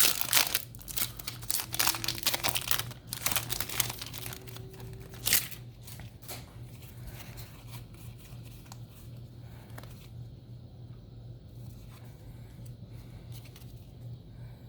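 Foil booster-pack wrapper crinkling and being torn open, with dense crackling for the first five seconds or so and a sharp tear near the end of it. After that come fainter rustles of the wrapper and cards being handled.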